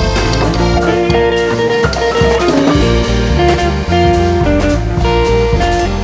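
Background music: a bluesy track led by guitar over a drum kit, with a steady beat.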